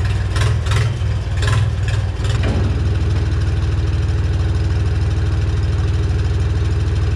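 A loader tractor's engine runs steadily while it moves with a suspended engine on its lift. Several sharp clanking knocks come in the first two seconds, then the engine settles into an even run with a steady hum.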